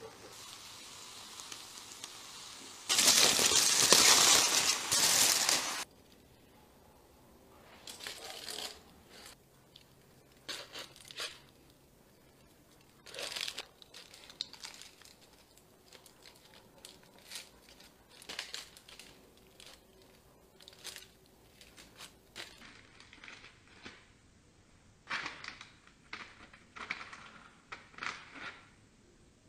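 Aluminium foil crinkling and tearing as it is peeled open, loudest in a burst of about three seconds near the start. Scattered softer crinkles and clicks follow.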